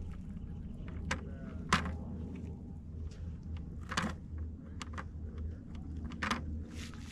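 Scattered sharp clicks and knocks, about five at uneven intervals, from handling things at a plastic bucket, over a steady low rumble.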